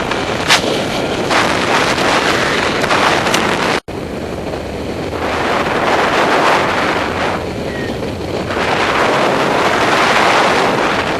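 Wind rushing over the microphone of a paraglider pilot in flight, swelling and easing in surges, with a brief cutout about four seconds in.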